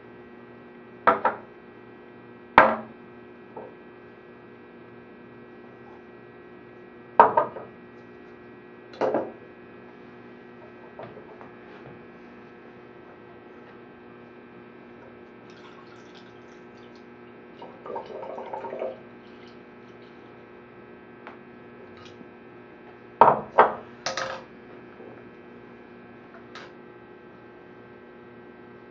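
Glass flasks and a beaker handled on a wooden table: a handful of sharp clinks and knocks as glassware is set down and picked up, with a brief pour of liquid a little past the middle, over a steady electrical hum.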